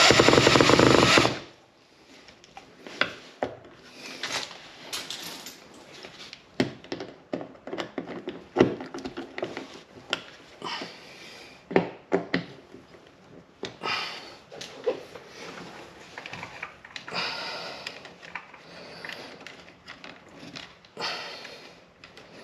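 Hand work with tools and parts: scattered sharp clicks, knocks and rustling handling noises, after a loud steady noise in the first second and a half.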